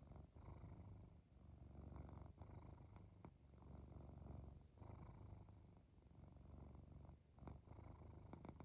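Domestic cat purring softly, a low rumble that swells and fades in time with its breaths, with a few faint clicks.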